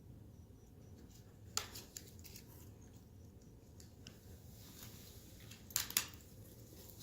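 Small product packaging being handled and opened by hand: a few sharp clicks and crinkly rustles, the loudest about one and a half seconds in and again around six seconds in.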